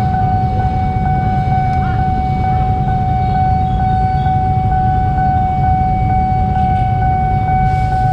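Level-crossing warning alarm sounding a steady, high electronic tone while the barrier is down, over the low rumble of idling motorbikes and traffic.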